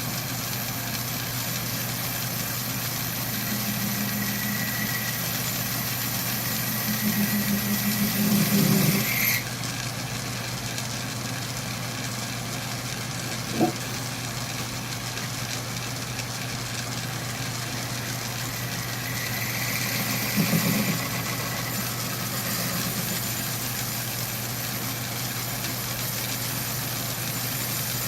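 A steady low machine hum, with tool work over it: a louder passage that builds and then cuts off abruptly, a single sharp knock midway, and a second, shorter louder passage later.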